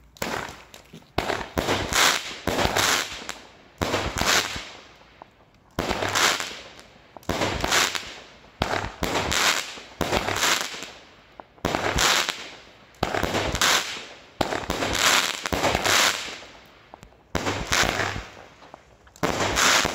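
Fireworks Specials 'Desert At Night' 16-shot 20 mm firework battery going off shot after shot, about one shot every second or so. Each shot is a short, dense burst of bangs and crackle.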